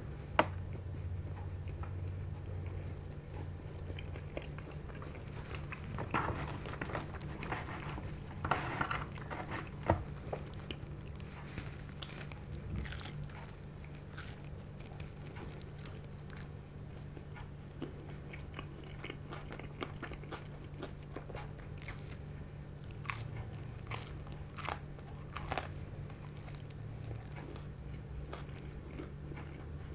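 Close-miked biting and chewing of pizza, with sharp crunches that come in clusters, over a low steady hum.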